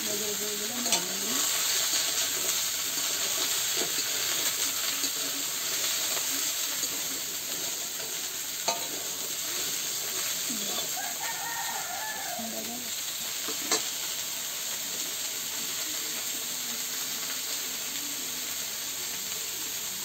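Potato and cauliflower pieces sizzling in hot oil in a steel karahi, stirred and turned with a spatula that scrapes and now and then clicks sharply against the pan.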